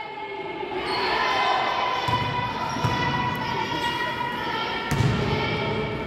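A ball bouncing on a sports hall floor, a few low thuds, under a continuous din of voices echoing in the hall.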